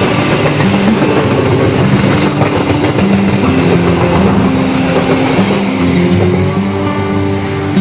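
Passenger train coaches passing close by on the rails: a loud, steady noise of wheels and running gear on the track.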